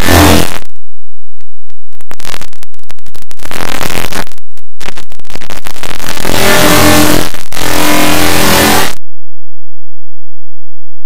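Harsh, heavily clipped and distorted noise from many copies of a logo clip's audio stacked over one another, chopped by abrupt cuts and dropouts.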